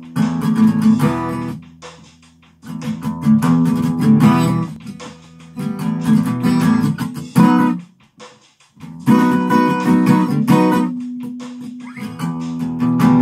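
Acoustic guitar strummed in four phrases, each dying away before a short pause and the next strum: the instrumental intro before the singing comes in.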